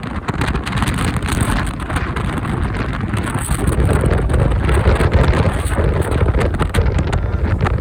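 Typhoon wind and riding airflow buffeting the microphone of a moving motorcycle: a loud, steady rush of wind noise with the motorcycle and road noise underneath.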